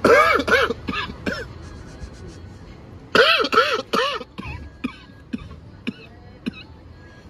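A man coughing and clearing his throat in two short fits, the second about three seconds in, then a few fainter single coughs, reacting to the heat of a very spicy smash burger.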